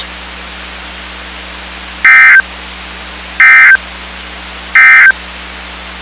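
NOAA Weather Radio EAS/SAME end-of-message data bursts: three short, loud bursts of buzzy digital tones about a second and a half apart, over a steady hum and hiss. They signal the end of the required weekly test broadcast.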